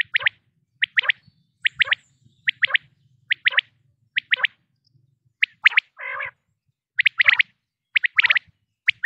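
Quail calling: repeated bursts of two or three quick, sharp whistled notes, each burst less than a second after the last, with one rougher, lower note about six seconds in.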